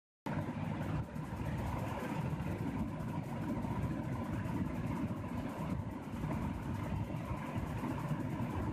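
Steady low rumbling background noise, like a running engine or distant traffic, with a faint steady hum. It starts abruptly about a quarter of a second in.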